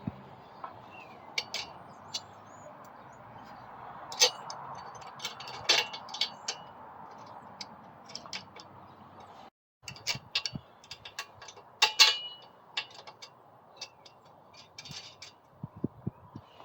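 Scattered metallic clinks, taps and knocks of steel parts being handled and fitted, with a low steady background hum, as a live axle and its hangers are set in place under a mini bike frame. The sharpest knocks come about four, six and twelve seconds in, and there is a brief silent gap partway through.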